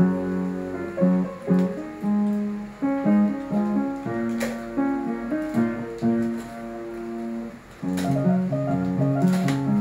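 Background instrumental music: a light melody over a stepping bass line, in the manner of keyboard and plucked strings.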